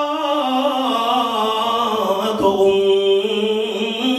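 A man chanting in long, held melodic notes that step slowly from one pitch to the next: the sing-song recitation of a preacher in a sermon.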